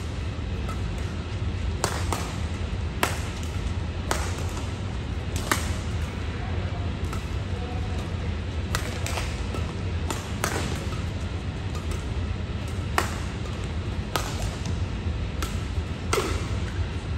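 Badminton rally: rackets striking a shuttlecock in sharp, irregular hits about once a second, over a steady low hum.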